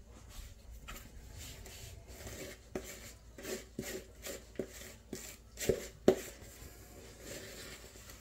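A spoon scraping and knocking against a container of thick fruit-cake mixture, a run of short strokes about two a second, with two sharper, louder knocks about six seconds in.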